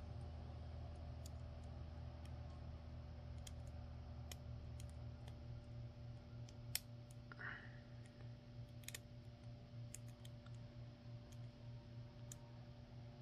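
Faint, irregular metallic clicks of a hook pick and tension wrench working the pins inside a brass euro cylinder lock, with one sharper click about halfway through.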